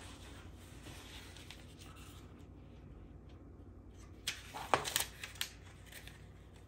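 Pages of a small paper instruction booklet being leafed through by hand: quiet at first, then a few quick paper rustles and flicks about four to five seconds in.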